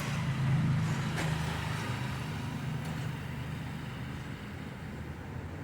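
A steady low engine hum that slowly fades away.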